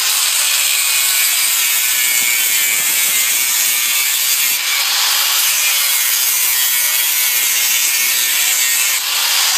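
Angle grinder's cutting disc cutting through a metal bar, a loud steady grinding screech of abrasive disc on metal over the running motor.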